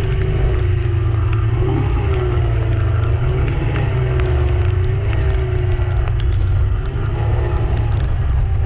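Fishing boat's engine running, a loud steady low rumble with a hum above it whose pitch wavers up and down.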